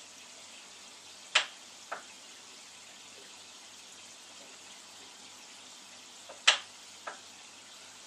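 Aquarium water circulating: a steady watery hiss with a faint low hum under it. Twice, about a second and a half in and again near the end, a sharp click sounds, followed by a fainter one about half a second later.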